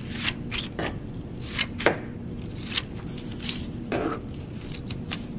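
Scissors cutting construction paper: about a dozen short, unevenly spaced snips as thin strips are cut from the sheet.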